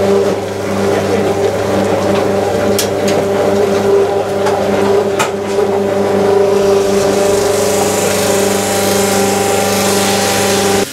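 Mobile column still for distilling wine into eau-de-vie, running: a steady mechanical hum with a hiss over it, the hiss growing stronger about two-thirds of the way through.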